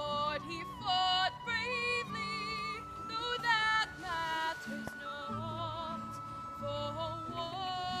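A woman singing a slow song solo, holding long notes with vibrato, over low held accompanying notes.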